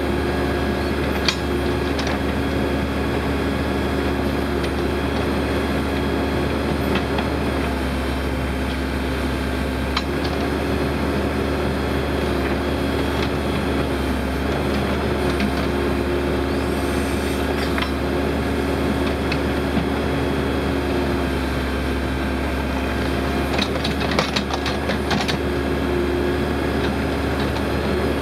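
Case 580L Turbo backhoe loader's turbocharged diesel engine running steadily while the backhoe arm works dirt back into a trench. A few sharp clanks sound now and then, with a cluster of them near the end.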